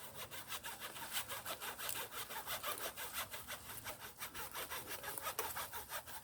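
Hand saw cutting through fallen dead wood with quick, regular back-and-forth strokes.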